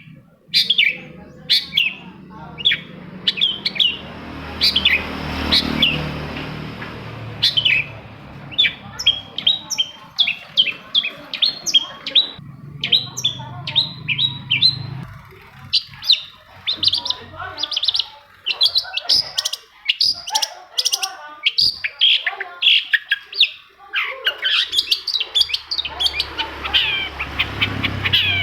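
Long-tailed shrike (cendet) singing: a long, busy run of short, sharp chirping notes in quick succession, with a low hum underneath at times.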